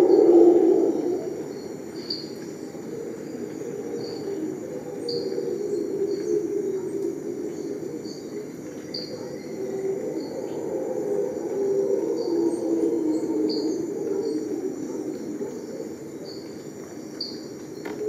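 Rainforest ambience: a steady high insect buzz and short high chirps repeating about once a second, over a louder low, wavering chorus that swells and fades.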